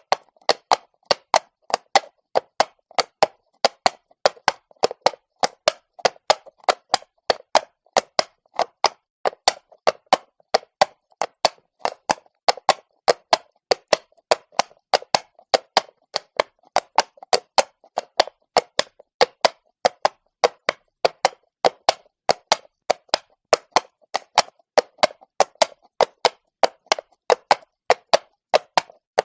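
Horse's shod hooves clopping on cobblestones at a steady walk, sharp knocks about two to three a second in a regular four-beat rhythm.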